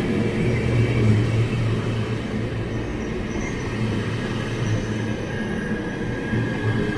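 A train running by on the track, with a steady low hum and faint high-pitched whining tones over it.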